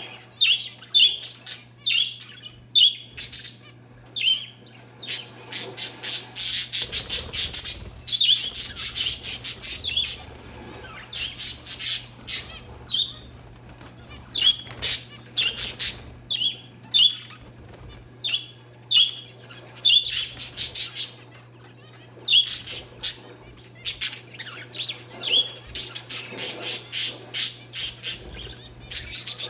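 Parakeets and zebra finches chirping: short high calls repeating about twice a second, broken several times by bursts of rapid, higher-pitched chattering.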